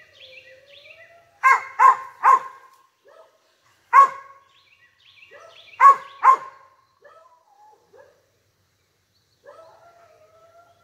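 A dog barking up a tree at a squirrel he has treed. There is a quick run of three sharp barks, then a single bark, then a pair, with softer whining near the start and near the end.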